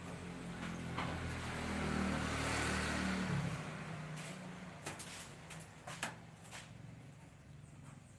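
A motor vehicle passes by: its engine and tyre noise swell to their loudest two to three seconds in, then fade away. A few sharp knocks follow near the middle.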